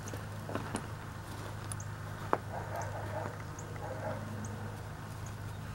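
Snow being scooped off a car hood and packed into a snowball by gloved hands: soft crunching with a few sharp clicks, the loudest about two seconds in, over a steady low hum.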